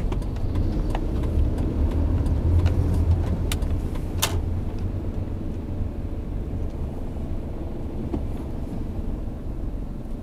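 Low, steady rumble of a car's engine and tyres heard from inside while it drives along a city street, with a couple of sharp clicks about three and a half and four seconds in.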